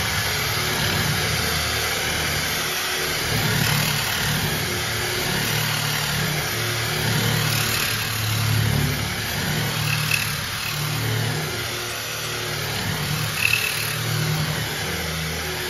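Small electric angle grinder with an abrasive disc running against rusted sheet steel, grinding rust off an air cooler's body. Its motor note rises and falls unevenly as the disc is pressed and eased.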